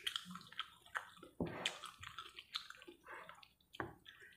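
Close-up eating sounds of a mouthful of chicken noodles: wet chewing with many short smacks and clicks.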